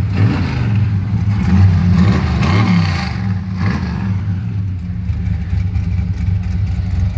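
Built 350 small-block V8 of a 1979 Chevy C10 warming up after a cold start. It is revved lightly in the first three seconds or so, the pitch rising and falling, then settles to a steady idle.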